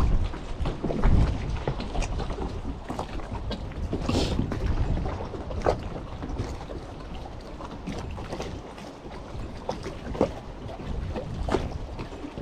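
Wind buffeting the microphone, gusting hardest about a second in, aboard a small wooden-style fishing boat, with scattered knocks and clatter throughout.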